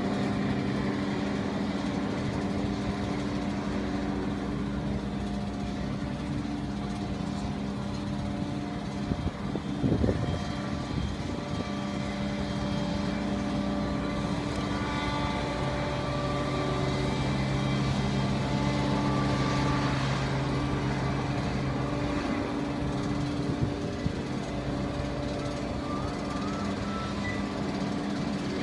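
An Airbus A319 being pushed back by a tow tractor: a steady mechanical drone made of several even hums and a higher whine, with a brief thump about ten seconds in.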